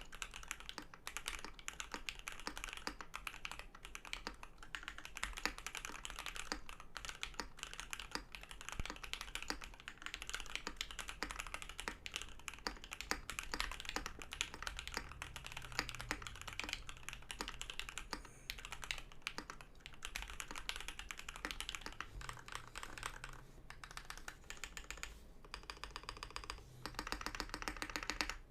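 Continuous fast typing on a custom 65% mechanical keyboard with lubed Alpaca v2 linear switches in an aluminum plate and case, with PBT keycaps: a steady stream of key clacks. Near the end comes a quicker, evenly spaced run of keystrokes.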